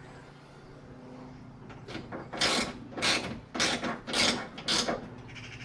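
Socket ratchet wrench working a nut loose in five quick strokes, about two a second, starting about two seconds in.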